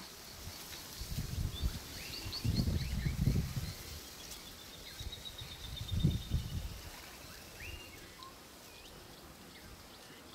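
Small birds chirping, with a long thin trill in the middle, over three bouts of low rumbling noise about a second, three seconds and six seconds in.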